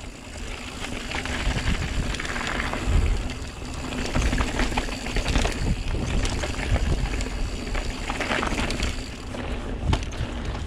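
Santa Cruz Megatower full-suspension enduro mountain bike descending dry dirt singletrack at speed: tyres rolling over dirt and small rocks, the bike rattling and clattering over bumps, with wind rumbling on the microphone.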